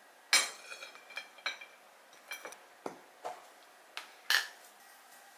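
Glass and ceramic tableware knocking and clinking on a table as a dish and a glass jar are handled: about eight sharp clinks, the loudest ringing briefly about a third of a second in, with another strong one just after four seconds.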